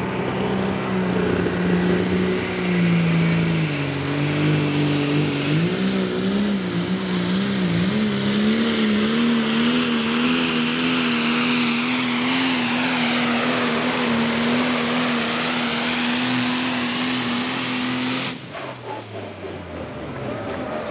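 Modified diesel pickup truck pulling a sled at full throttle. The engine holds a steady, slightly wavering pitch, with a thin high whistle rising partway through, then the sound cuts off suddenly near the end.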